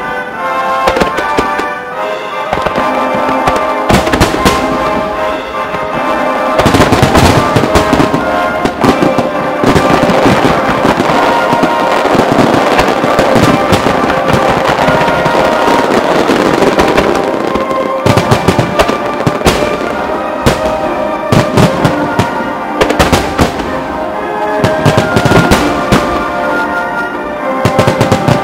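Fireworks shells bursting over music. The bangs crowd into a dense, continuous barrage from about six seconds in until about eighteen seconds in, then come as separate sharp bangs again towards the end.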